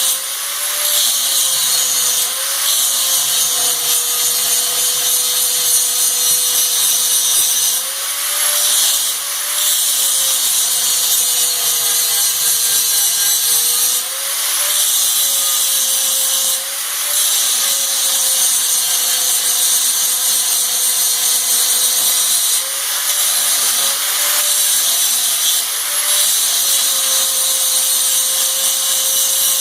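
Power grinder running steadily as it grinds down the metal of a manual tire changer's mount/demount tool, with a high hiss of abrasive on metal. Its whine dips briefly in pitch several times as it bears into the work.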